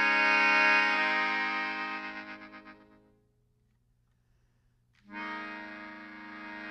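Accordion holding a sustained chord that swells, then fades out with a wavering tremble a little past three seconds in. After a short stretch of near silence, a new chord comes in sharply about five seconds in.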